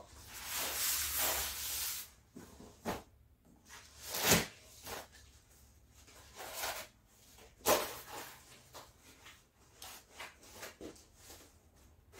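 Cloth handling: a tablecloth pulled off a table with a long rustle of fabric in the first two seconds, then softer rustling and several scattered light knocks, the sharpest about four seconds in.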